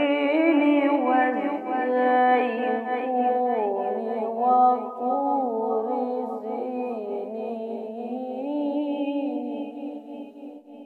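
A child's voice chanting Quran recitation (tilawat) in one long melodic phrase, with held notes that bend and turn in ornaments, fading away near the end.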